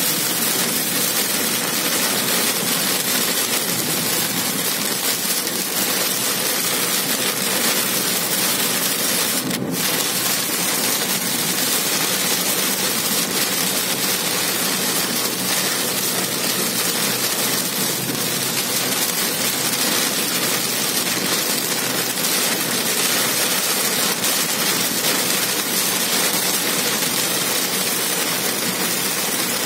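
Heavy rain hitting a car's windshield and roof, heard from inside the car as it drives, a steady hiss over engine and road noise. A single sharp click comes about ten seconds in.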